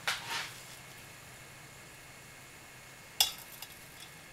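Brunton Flex canister stove burning with a steady faint hiss. Just after three seconds comes one sharp metallic clink, followed by a few small ticks, from the cook pot and its metal handles as the pot is brought over the burner.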